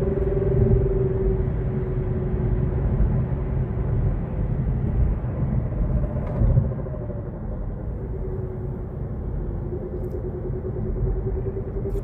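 Kia Niro EV's electric drive unit whining over low road rumble, two tones that sag slightly in pitch through the middle and rise again near the end; a brief bump sounds about six and a half seconds in. This is the abnormal drive-unit noise that dealer checks and replaced tires and axle shafts have not cured.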